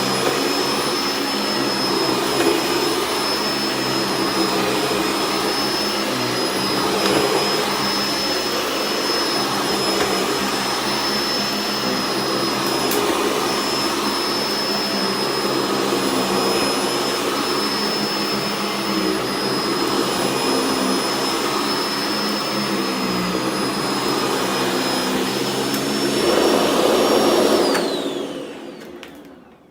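Sanitaire upright vacuum cleaner running steadily with a high whine, sucking up rock salt sprinkled on a soft rug. Near the end it is switched off and the motor winds down, its whine falling.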